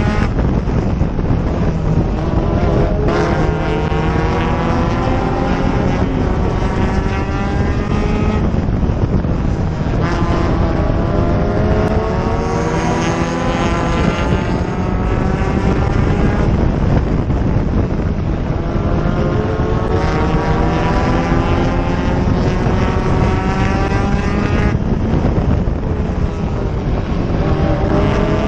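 Enduro race car's engine at racing speed, heard close up from the hood, its pitch climbing under acceleration for several seconds and then dropping back, about five times over.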